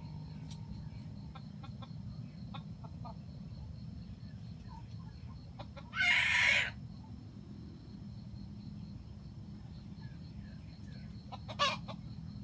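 Red junglefowl rooster giving one short, harsh crow about six seconds in, then a brief sharp call near the end.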